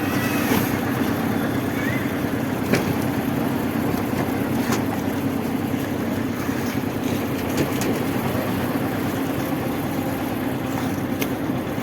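Concrete mixer machine running steadily, its engine and drum giving a continuous rough drone, with a few short sharp knocks, one a little under three seconds in.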